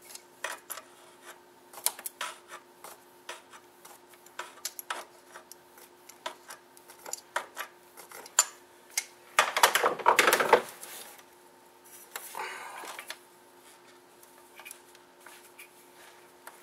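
Hands working rubber vacuum hoses and their spring clamps loose on a VW 2.0L engine bay: scattered small clicks and clinks of plastic and metal, with a louder rustling burst lasting about a second roughly ten seconds in and a shorter one soon after.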